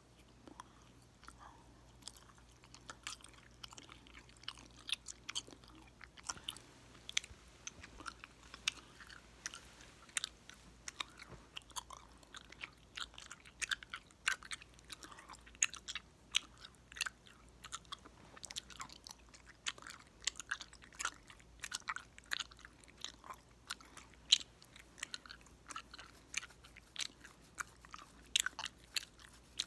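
Popping gum chewed wetly close to the microphone, with frequent sharp pops and clicks coming several times a second.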